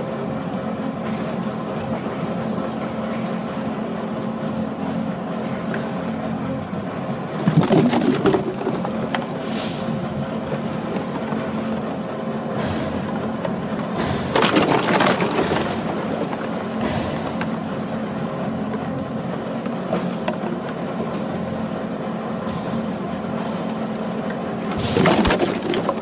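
Baler infeed conveyor machinery running with a steady hum, with used plastic PET bottles clattering and crackling in three short, louder bursts spread through.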